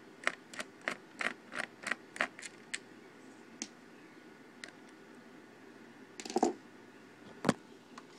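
Light clicking and tapping of a screwdriver working small screws in a laptop's plastic base: a quick run of clicks, about three a second, for the first three seconds, then a few scattered taps, the sharpest near the end.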